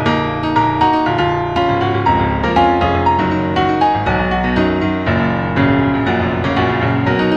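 Computer playback of a MIDI score generated automatically from an image, played with a piano sound: dense clusters of many notes at once, new ones struck every fraction of a second at an uneven pace.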